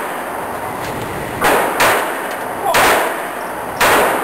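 Sig Sauer Mosquito .22 LR semi-automatic pistol fired four times at an uneven pace, each sharp crack followed by a short ring; the first two come in quick succession about a second and a half in.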